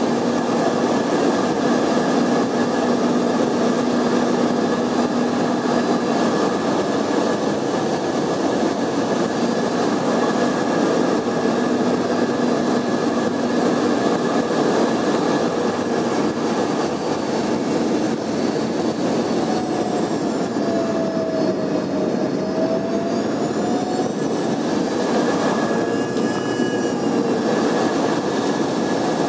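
Cabin noise of an Embraer 145 on final approach: the rear-mounted Rolls-Royce AE3007 turbofans whining steadily over a constant rush of airflow. About two-thirds of the way through, the engine whine dips in pitch and comes back up as thrust is adjusted.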